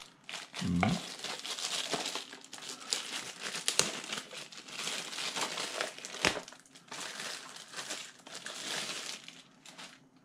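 Product packaging crinkling as it is handled, with a few sharp clicks, the two loudest about four and six seconds in.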